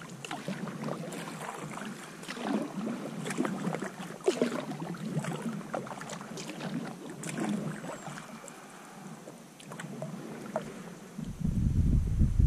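Sea kayak paddling: the paddle blades dip and splash into the water in irregular strokes, with water trickling and lapping around the hull. Near the end a loud low wind rumble on the microphone sets in.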